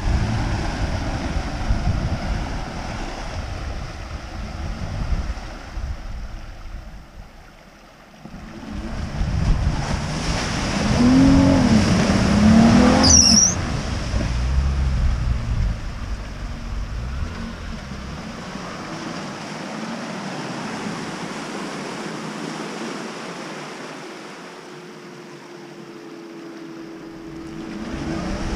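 Jeep Cherokee Trailhawk's engine revving up and down as its mud-terrain tyres spin and churn through deep mud. The revving is loudest about halfway through and eases to a quieter, steadier drone near the end.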